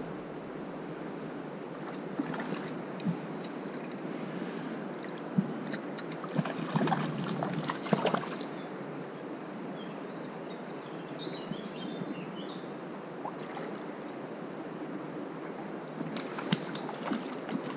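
Small river running steadily over its bed, with a bird chirping briefly in the middle and scattered clicks and rustles at a few moments.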